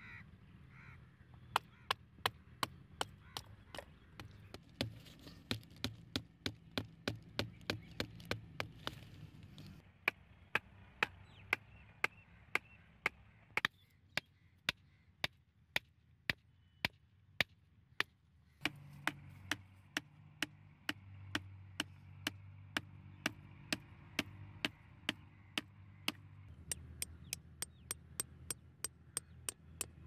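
Hammer tapping a thin stick in quick, light strokes, about two a second, with a few short pauses.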